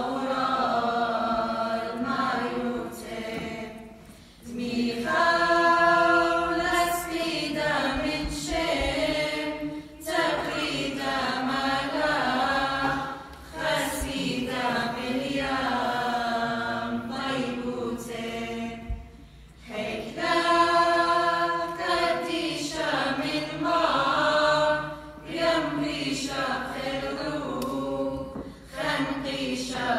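Small mixed choir of men and women singing a hymn of the Assyrian Church of the East a cappella, in long sustained phrases with brief breaks between them.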